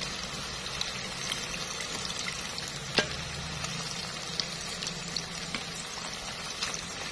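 Battered pumpkin strips deep-frying in hot oil: a steady sizzle and crackle of bubbling oil, with a sharp click about three seconds in.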